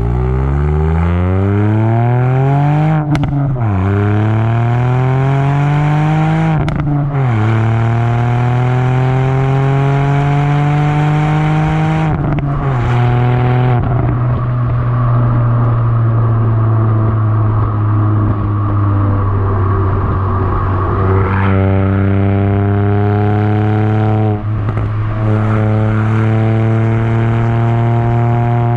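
Ford Fiesta ST 200's turbocharged 1.6 EcoBoost four-cylinder, Stage 2 remapped and breathing through a Milltek cat-back exhaust, accelerating hard through the gears. The engine note climbs and drops sharply at each upshift, twice in quick succession, then once more. After that it pulls more slowly and holds a high, steady drone.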